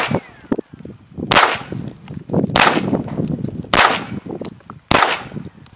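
Beretta 93R 9mm machine pistol fired on semi-automatic: four single shots about a second apart, each trailing off in a short echo.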